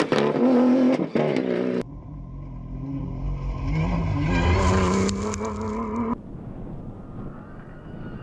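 Off-road rally cars' engines running hard in a string of edited clips. A loud engine note cuts off abruptly about two seconds in, then an engine revs up and falls back, and near the end that gives way to a quieter low rumble.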